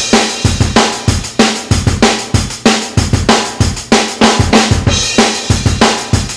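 Music with a fast, driving drum-kit beat: kick drum, snare and cymbals hitting several times a second.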